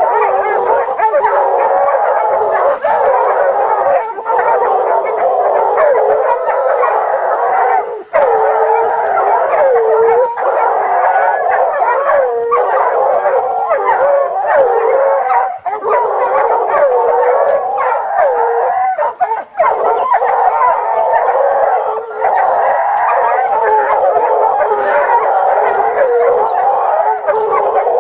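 Hunting hounds baying and howling without pause, several voices overlapping in rising and falling glides. It is the bay of hounds with a wild cat treed above them.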